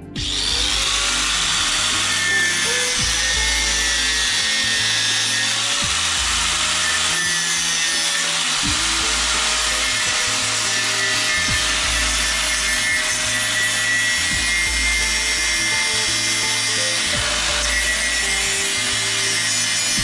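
Electric angle grinder cutting through a thin steel rod, its cut-off disc giving a steady, loud whine with a grinding hiss.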